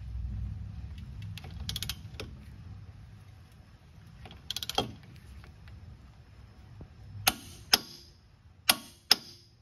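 Click-type torque wrench on an 8 mm Allen-head steering rack mounting bolt: a few quiet ratchet strokes, then four sharp clicks in two pairs near the end as the wrench reaches its 45 ft-lb setting.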